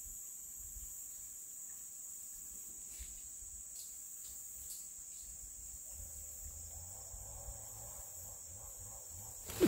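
Steady high-pitched drone of insects in tropical forest. A faint low hum joins about six seconds in, and a sudden loud noise breaks in at the very end.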